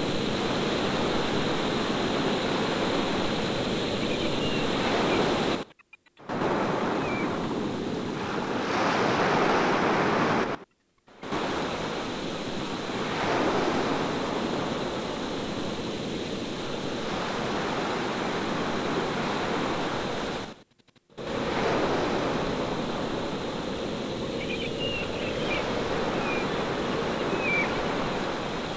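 Ambient sound of ocean surf and rushing water, a steady wash of noise that cuts out briefly three times. A few faint high chirps come through now and then.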